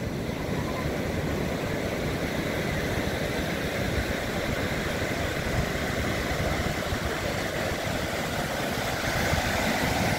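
Ocean surf breaking on the beach: a steady roar of waves without a break.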